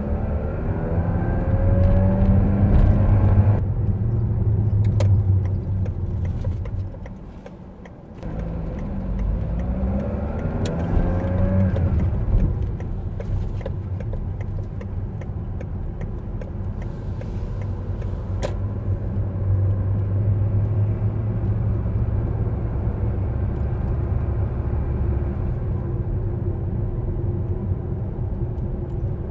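Car engine and road noise heard from inside the cabin while driving in town traffic. The engine note rises twice as the car speeds up, with a brief quieter lull between.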